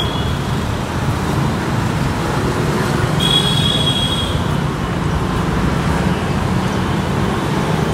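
Steady street traffic noise, with a brief high thin tone about three seconds in.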